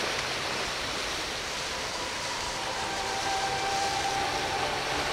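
Steady rush of wind and water with a boat's engine drone faintly coming in about halfway through and holding steady.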